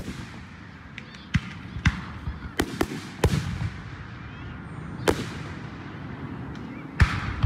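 Aerial firework shells bursting overhead: about eight sharp bangs, clustered in the first few seconds, one about five seconds in and a loud one near the end. Each bang trails off in a rolling echo.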